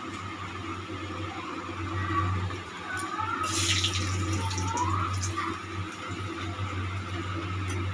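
Whole spices, dried red chillies and bay leaves sizzling in hot oil in a metal kadai as asafoetida is added for a tempering, over a steady low hum. About three and a half seconds in, a spoon stirs and scrapes through the pan with a brief, louder rush of sizzle.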